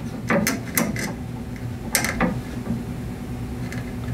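Nylon cable ties being pulled tight around wiring: short ratcheting zips and clicks, three in the first second and another about two seconds in.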